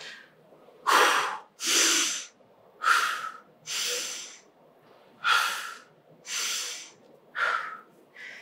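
A man breathing hard through the mouth, gasping in and out, out of breath from an all-out workout. About seven loud, rough breaths come roughly one a second, short sharp ones alternating with longer ones.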